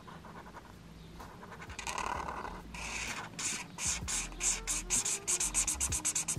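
Felt-tip marker rubbing on paper as a shape is coloured in. Faint at first, then about three seconds in it turns to quick back-and-forth scratchy strokes.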